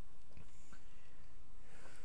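A nickel scraping the coating off a scratch-off lottery ticket, with light, scattered scratching and a short louder stretch just before the end.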